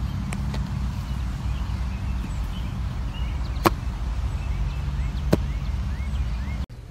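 Two sharp knocks about a second and a half apart: an athletic shoe with a springy insole landing on artificial turf and bouncing back up. Small birds chirp over a steady low rumble, and all of it cuts off near the end.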